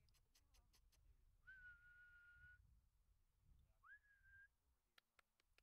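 A person whistling to call a dog, in two notes: a steady held whistle, then a shorter one that slides up before holding.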